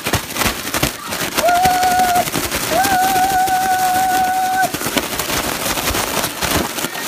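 A balloon being rubbed and shaken close up, making rapid crackling and scratching noises. Two steady high squeals come in the middle, a short one about a second and a half in and a longer one of about two seconds just after.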